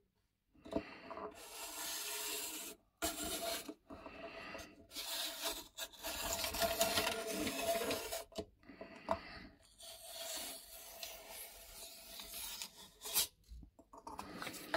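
Circle cutter's blade scraping round through a sheet of paper under firm pressure, in several strokes of one to a few seconds with short breaks between.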